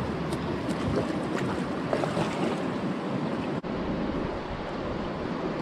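Shallow river water running steadily over a stony bed, with wind on the microphone. A few faint clicks sound in the first two seconds, and the sound cuts out for an instant a little past halfway.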